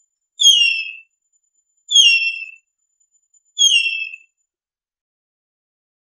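Harpy eagle calling: three high-pitched, falling screams, each about half a second long and spaced about a second and a half apart.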